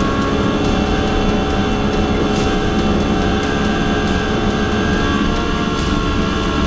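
Turbocharged Honda K20 2.0-litre four-cylinder at full throttle in fifth gear, heard from inside the CRX's stripped race cockpit at about 200 mph: a steady high-rpm drone over a heavy rush of wind and road noise.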